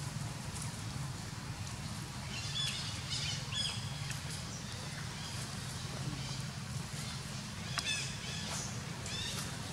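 Short high-pitched animal chirps in two clusters, about two seconds in and again near the end, over a steady low hum.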